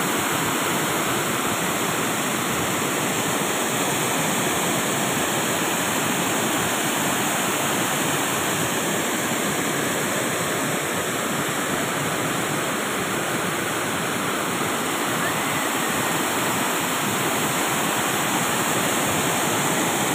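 Water pouring over a long, low concrete weir and churning into white water at its foot: a steady, unbroken rush.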